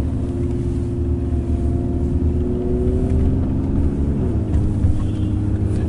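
Car engine and road noise heard from inside a moving car's cabin: a steady low drone whose pitch climbs slowly, then drops a little just past four seconds in.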